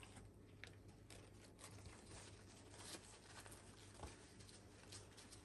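Near silence over a faint steady hum, with scattered soft clicks and rustles from metal tongs lifting marinated chicken pieces off paper towels and setting them into potato starch.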